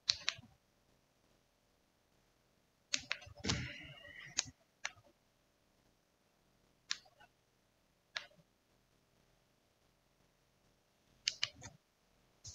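Sparse computer-mouse clicks and light desk handling noise in a quiet room: a click at the start, a short cluster of clicks and rustling about three seconds in, single clicks around five, seven and eight seconds, and another quick cluster near the end.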